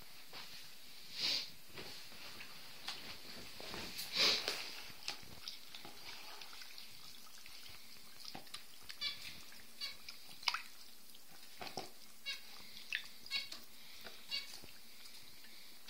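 Hands pressing and kneading cornstarch in water in a plastic tub: scattered small wet clicks, drips and taps. A few louder short high squeaks stand out, the loudest about a second and about four seconds in.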